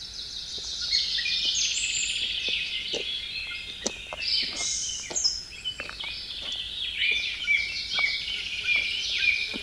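Several songbirds singing at once, a dense mix of chirps and trills, with faint footsteps about twice a second.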